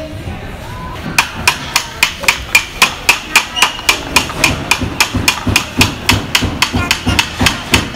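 Hammer driving small nails into a wooden craft-kit box: a quick, even run of blows, about three or four a second, starting about a second in.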